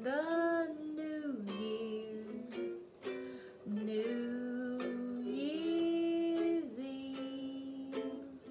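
A woman sings slow, long-held notes while a ukulele is strummed underneath.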